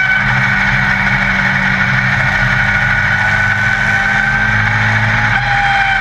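Yamaha XJR1300 inline-four motorcycle engine of a Legend Car, heard from inside the cockpit, running hard at high revs on track. The pitch holds nearly steady and sags slightly near the end.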